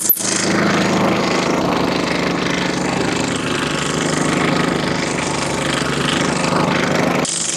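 Walk-behind double-drum vibratory roller with a 10 HP self-start engine, running steadily as the roller travels over the soil. The sound changes abruptly near the end.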